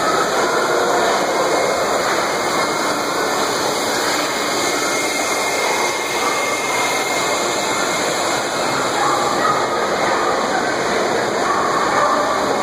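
Loud, steady din of a busy dog-show arena: a constant roar with indistinct voices mixed in, picked up loudly by a phone's microphone.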